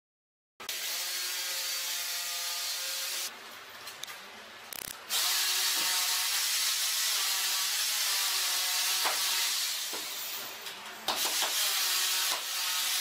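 A power tool running with a steady hiss over a few steady tones. It starts abruptly just after the start, eases off for nearly two seconds about three seconds in, and drops again briefly about eleven seconds in.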